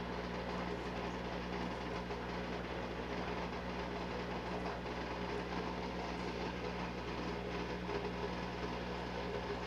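Steady low mechanical hum with no change in level.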